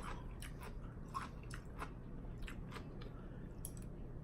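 Close-miked chewing of a mouthful of wonton soup, with irregular wet mouth clicks.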